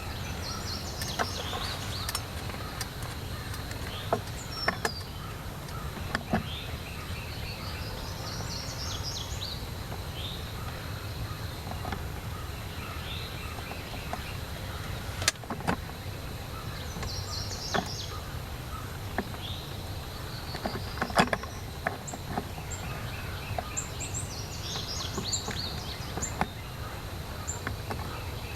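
Songbirds singing short repeated phrases every few seconds over a steady low rumble of outdoor noise, with scattered sharp clicks and taps.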